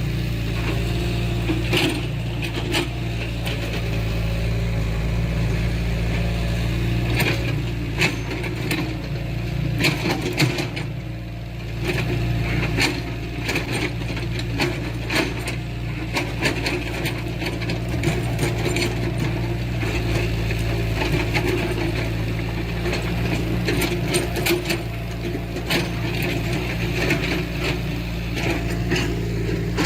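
Heavy earthmoving machine's diesel engine running steadily under load, with frequent sharp clanks, knocks and cracks from the machine at work.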